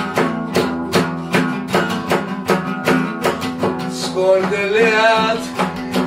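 Steel-string acoustic guitar strummed in a steady rhythm, chords ringing, with a man's singing voice coming in briefly about two-thirds of the way through.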